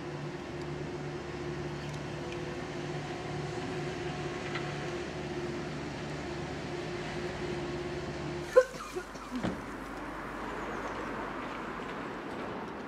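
Outdoor background with a steady mechanical hum and a few faint steady tones. About eight and a half seconds in, a sharp click cuts it off and a hissier, even background follows.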